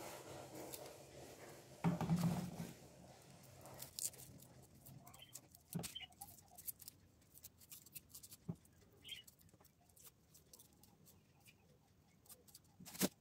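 Faint scraping and rustling as small red shallots are peeled with a knife, the papery skins dropping onto a plastic bag, with scattered small clicks. A brief louder rustle comes about two seconds in and a sharp click near the end.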